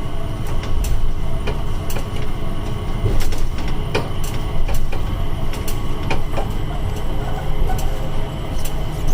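Changi Airport Skytrain people mover running past, a steady low rumble with scattered sharp clicks.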